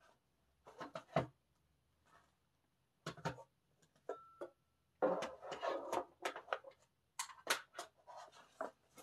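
Small objects being handled: bursts of light clicks and rattles at irregular moments, with a brief steady high beep about four seconds in.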